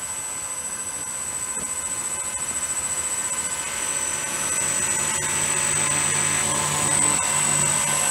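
The electric motors of a model AC-130 turn its propellers on the ground, making a steady high-pitched whine. A lower propeller hum joins about four seconds in, and the sound grows gradually louder.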